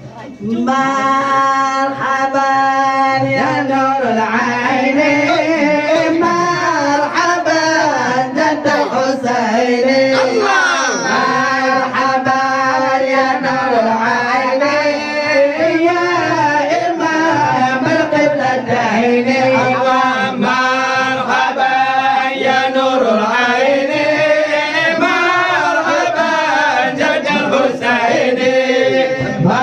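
Men singing an Acehnese syair, a chanted verse, into microphones. The melody is continuous, with long held notes that waver and slide between pitches.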